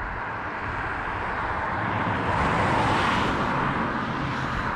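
A vehicle passing on a road, its tyre and engine noise swelling to a peak about three seconds in and then fading.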